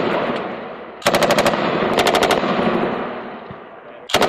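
Belt-fed machine gun firing short bursts of about half a second at roughly a dozen rounds a second, two in quick succession, each trailing off in a long rolling echo, with a third burst starting near the end.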